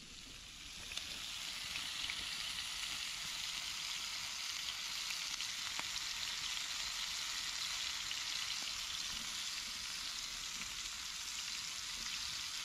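Bacon-wrapped dove jalapeño poppers sizzling in a hot pan over an open fire: a steady frying hiss with fine crackles, growing louder about a second in.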